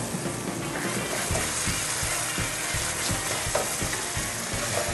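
Bordelaise sauce ladled into a hot pan of mushrooms and marsala wine, sizzling steadily with small crackling spatters as it hits the hot pan and starts to simmer.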